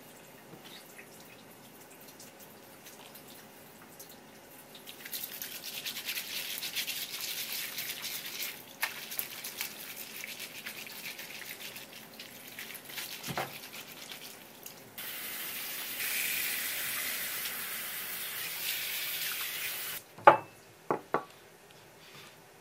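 Water from a kitchen tap running over hands as scallop meat is rubbed clean in a nylon mesh scrubber, with scratchy rubbing and splashing. A steady full stream runs for about five seconds, then the tap shuts off suddenly. Just after that come three sharp knocks, the loudest sounds, as a small ceramic dish is set on the wooden board.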